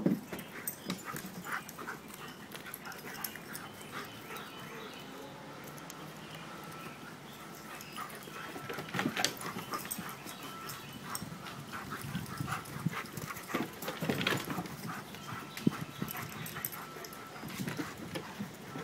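German shepherd dogs at play, making dog noises with irregular scuffling and knocks.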